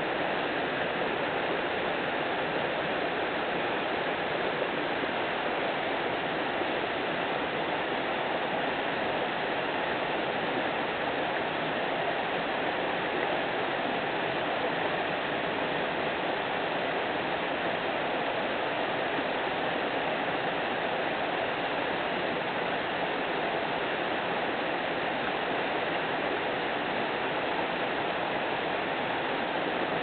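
Shallow waterfall: water sheeting down a broad, sloping rock slab, a steady rushing noise that does not change.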